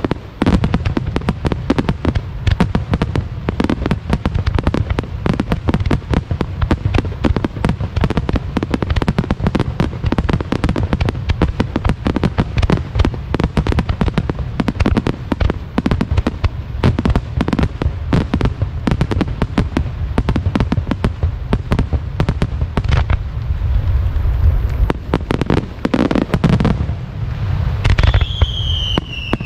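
Wide star mine fireworks barrage: shells launching and bursting in a rapid, unbroken run of bangs, heavy in the low end. Near the end a whistle slides down in pitch over the bangs.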